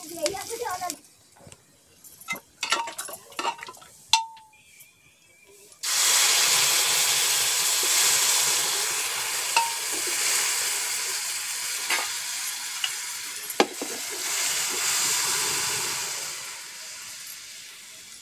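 A spatula scrapes and clinks in a karahi of onions, cumin and red chillies frying in oil. About six seconds in, boiled dal is poured into the hot tempering and it bursts into a loud sizzle that hisses steadily, then slowly dies down near the end.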